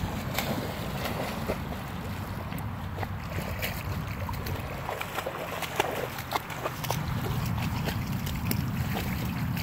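Water splashing and sloshing with many small sharp splashes as a long-haired Weimaraner paddles through shallow, weedy water, over a steady low rumble.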